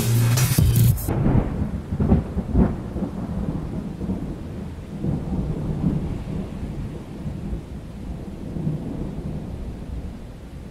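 Thunder rumbling, loudest about two seconds in and slowly dying away, over a steady hiss of rain. Music stops abruptly about a second in.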